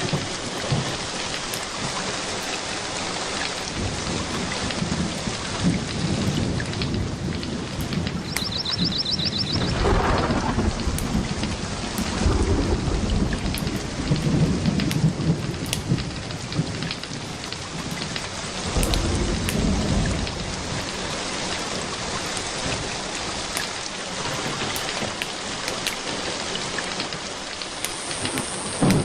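Steady rain falling, with a few low rolls of thunder, the first about a third of the way in and more around the middle.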